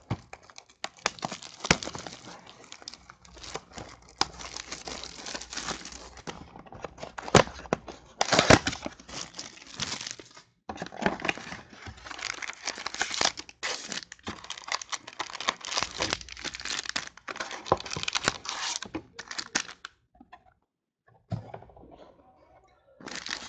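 A cardboard trading-card blaster box being torn open and its foil card packs crinkling and rustling as they are pulled out and stacked, with a few sharper tearing strokes. The rustling stops near the end.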